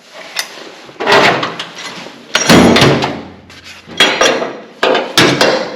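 A series of about five clunks and rattles, each a sharp knock followed by a short clatter: hard parts of a race car's seat and harness being handled and knocked about.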